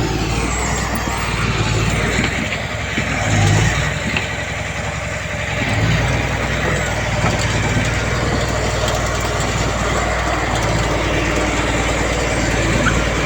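Heavy diesel earthmoving machinery running steadily under work. The low engine note drops away a couple of seconds in and picks up again about six seconds in.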